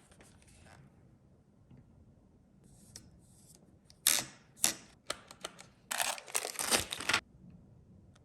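Cardboard box and packaging being opened and handled: a couple of sharp scrapes about four seconds in, a few light clicks, then about a second of dense scratchy rustling.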